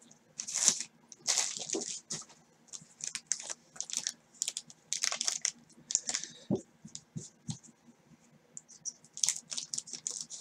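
Wrapped packs of 1989 Score football cards crinkling and rustling in gloved hands as they are handled, with three soft knocks about six to seven and a half seconds in.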